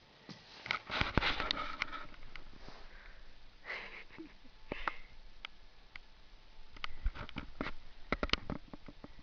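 A kitten sniffing close to the microphone, in short noisy bouts mixed with sharp clicks and rustles: about a second in, around four seconds in, and again from about seven to eight and a half seconds in.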